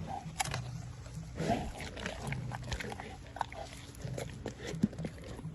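Tiger crunching chicken drumstick bones with its back teeth: irregular cracks and crunches as the bones break.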